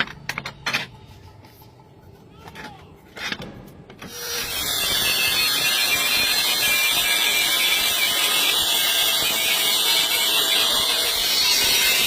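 A few sharp knocks and clicks of metal being handled, then about four seconds in a power tool starts cutting metal with a loud, steady hissing grind.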